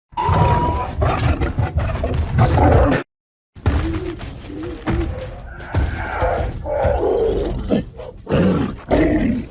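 Sound-designed vocalizations of giant film apes. A deep growling roar runs for about three seconds and stops dead. After a short silence comes a run of shorter growls and grunts that slide up and down in pitch.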